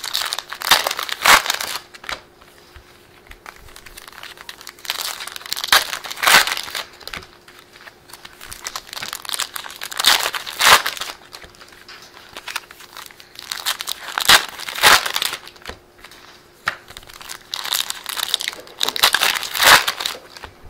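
Foil trading-card packs being torn open and crinkled by hand, in loud bursts about every four seconds with quieter rustling between.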